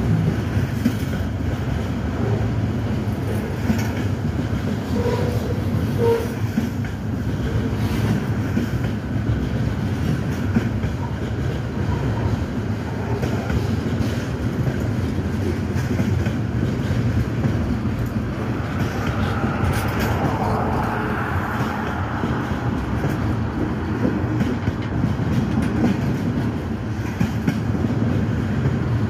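Freight train cars rolling past close below: a steady rumble of steel wheels on rail with clickety-clack over the rail joints. A brighter, higher scraping swells for a few seconds about two-thirds of the way through.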